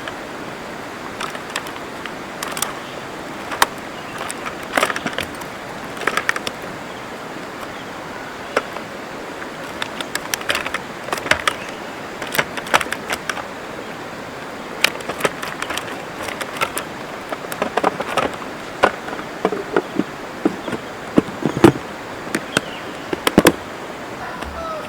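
Steady rush of a river with irregular sharp cracks and snaps over it, coming more often and louder in the second half.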